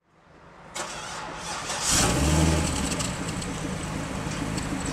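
Chevrolet Corvette C6's 6.0-litre LS2 V8 on its stock exhaust starting up: a short crank, then the engine catches with a loud flare about two seconds in and settles into a steady idle.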